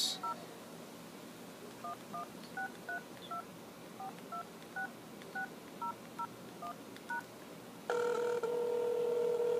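Telephone keypad touch tones: about fifteen short two-note beeps at an uneven pace as an international number is dialed. Near the end a louder steady tone of about two seconds comes on as the call starts to ring through.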